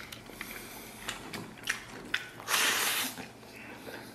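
Close-up eating sounds: wet chewing with small clicks. About two and a half seconds in comes a loud, hissy half-second slurp as rice with braised pickled cabbage is shoveled from the bowl into the mouth with chopsticks.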